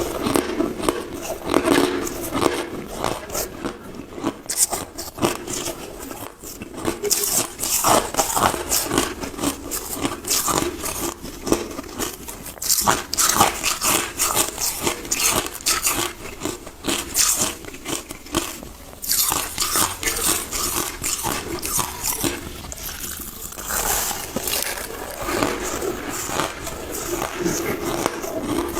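A person biting and chewing crushed ice: a dense, irregular run of crisp crunches.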